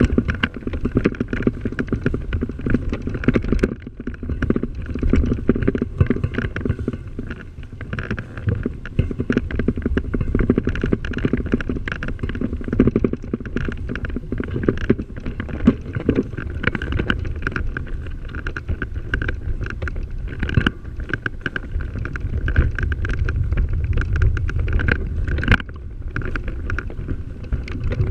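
Ride noise from a vehicle-mounted camera rolling along a dirt track strewn with fallen leaves. Tyres rumble and rattle over the ground, with frequent small knocks from bumps and wind buffeting the microphone.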